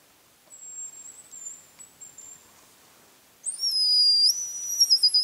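Thin, very high whistles in the pattern of a hazel grouse's song: a faint, long whistle about half a second in, then a much louder, closer whistle about three seconds in that steps in pitch and slides down at the end.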